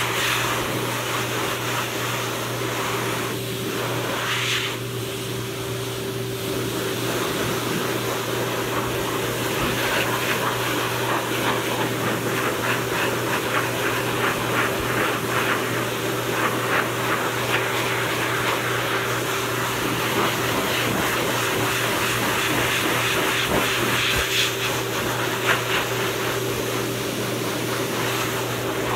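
Pet grooming blow dryer running steadily: a constant motor hum under a rush of air, blowing on a freshly bathed dog's coat.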